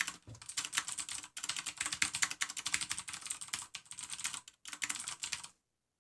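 Fast typing on a Hansung MCF7 mechanical keyboard with Cherry MX Blue switches: a dense run of sharp clicky keystrokes with a few brief pauses, stopping about a second before the end.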